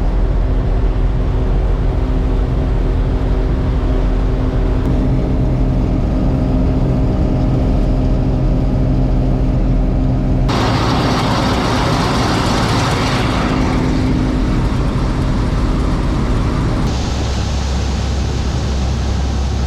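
John Deere 4400 combine's diesel engine and threshing machinery running steadily at working speed. About halfway through the sound changes abruptly to a rushing, noisier machine sound, and it shifts again near the end.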